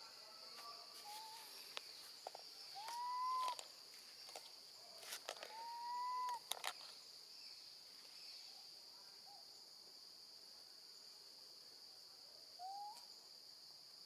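Baby monkey calling for its mother: several clear, rising cries, two longer ones a few seconds in and shorter ones near the start and end, over a steady high insect buzz.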